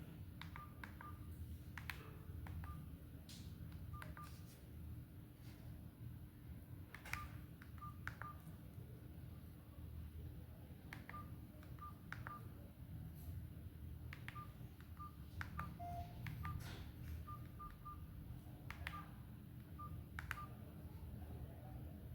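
Itel Power 450 keypad phone giving short, same-pitched key beeps with button clicks as its keys are pressed at an irregular pace, over a low background hum.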